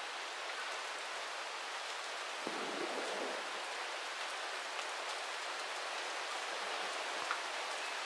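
Light rain falling on a river's surface: a steady, even hiss with faint scattered drop ticks.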